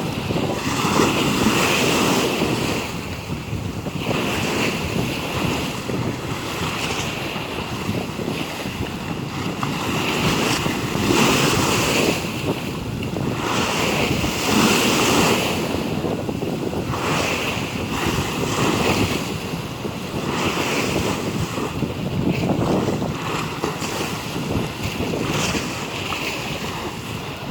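Rough sea waves surging and washing in, in swells every few seconds, with wind buffeting the microphone.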